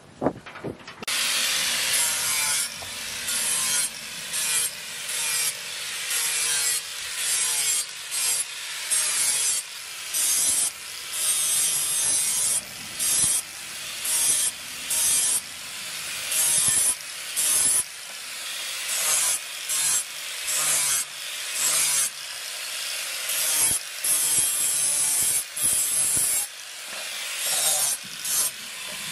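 Angle grinder with an abrasive disc grinding the flat of a steel knife blade, starting about a second in. It runs in repeated strokes, the grinding noise breaking off briefly between passes roughly once a second. This is rust being ground off during a restoration.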